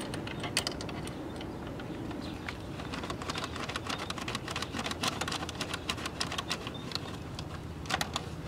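Scattered light clicks and small metal taps from hand work at a scooter's gearbox oil screw as it is turned out, over a faint steady low hum.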